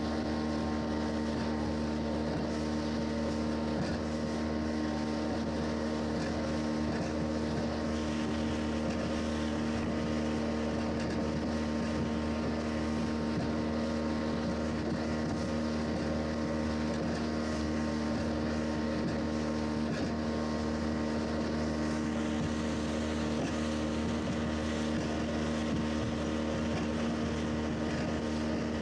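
Small motorboat's engine running at a steady pitch at cruising speed, with water rushing and spraying past the hull and wind on the microphone.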